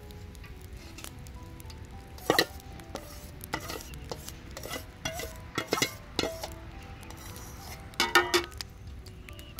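Aluminium skimmer scraping and tapping against a metal bowl and a large aluminium pan: a series of sharp metallic clinks, with the loudest cluster near the end.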